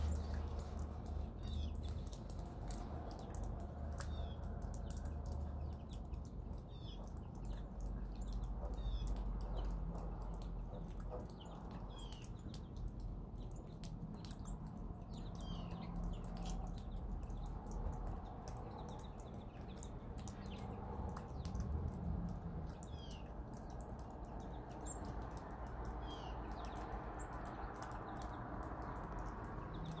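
A small bird calling with short, high, falling chirps, repeated every few seconds, over a low steady rumble.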